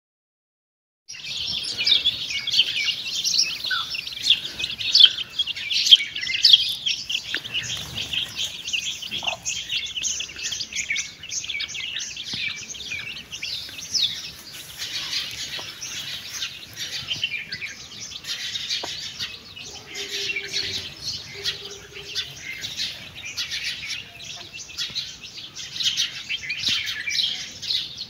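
A brood of chicks peeping, many rapid high cheeps overlapping without a break, starting about a second in. Two short, lower held notes come about two-thirds of the way through.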